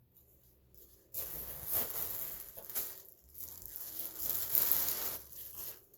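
Packaging crinkling and rustling as a new hair dryer brush is handled and unwrapped, starting about a second in and stopping just before the end, with irregular crackles.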